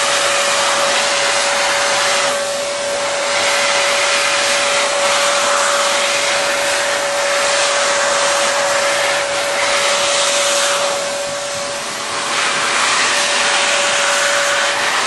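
Electric heat gun running steadily, blowing hot air to shrink wrap-around heat-shrink tubing onto a cable: a loud rushing hiss of air with a steady whine from its fan motor. The air noise eases off briefly twice, about two and a half seconds in and again near the end.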